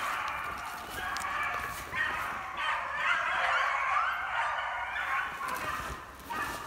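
A pack of beagles baying on a rabbit's trail, several voices overlapping without a break: hounds in full cry, running the scent.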